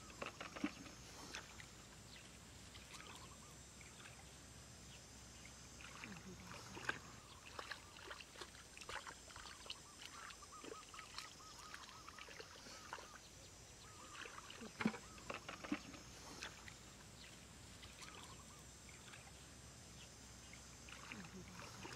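Hands squelching and sloshing through wet mud and shallow muddy water, faint, with scattered small splashes and slaps; the sharpest come about seven seconds in and about fifteen seconds in.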